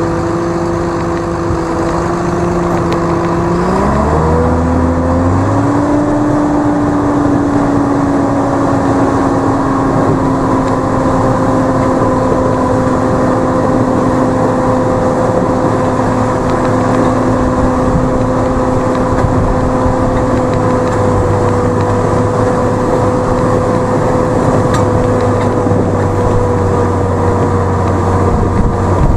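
Tractor engine running, its pitch rising about four seconds in as it speeds up, then holding steady at the higher speed.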